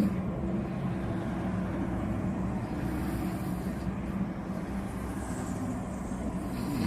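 Man snoring in his sleep: one snore right at the start and another near the end, over a steady low hum.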